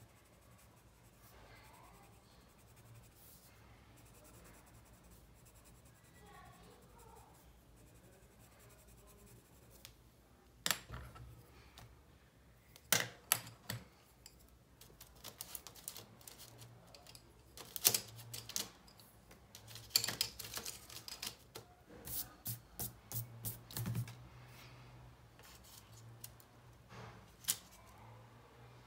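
Sharp clicks and clatter of wooden colored pencils being handled, picked up and set down on a hard surface, in irregular clusters after several quiet seconds.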